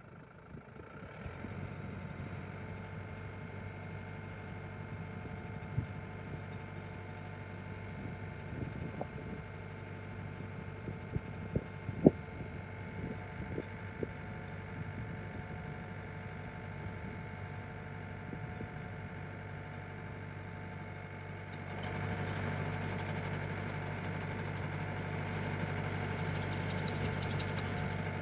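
Tractor engine idling steadily, with a few sharp clicks. About 22 seconds in the sound grows as the PTO-driven Niplo fertiliser spreader starts, adding a fast rattling buzz from its swinging spout mechanism that gets louder near the end.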